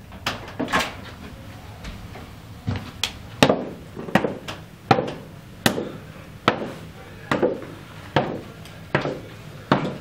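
Footsteps of hard-soled leather shoes on bare wooden stairs: sharp knocks at an even walking pace, about one every three-quarters of a second, after a couple of softer steps in the first second.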